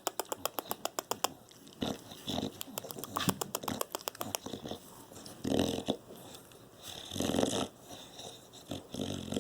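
A dog's close-up mouth and breathing sounds: two runs of rapid clicking, about eight a second, in the first half, then two short, heavy breaths.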